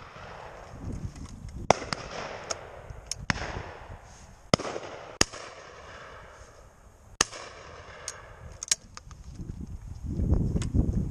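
Shotguns firing at flying pheasants: about eight sharp reports spaced irregularly, some loud and close, others fainter and farther down the line, a few trailing a short echo. A low rumbling noise comes near the end.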